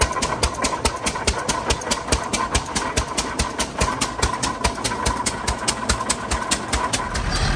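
Antique engine running with a rapid, regular popping exhaust, several sharp beats a second. Near the end a heavier, lower rumble takes over.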